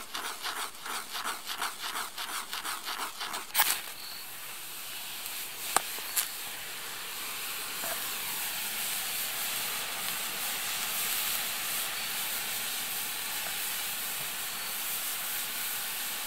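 Wooden pestle grinding homemade black powder in a mortar in quick, even scraping strokes. About three and a half seconds in, the crude black powder (potassium nitrate, sulfur and charcoal) burns with a steady hiss, with a couple of sharp pops near the start.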